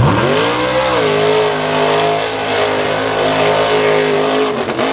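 Mud bog truck's engine revving hard as it launches through a dirt pit, tires spinning. The engine note climbs steeply over the first second, holds high and steady, then dips briefly near the end before climbing again.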